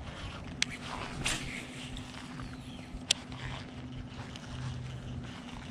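Baitcasting reel being cast and cranked: a few sharp clicks over a steady low hum.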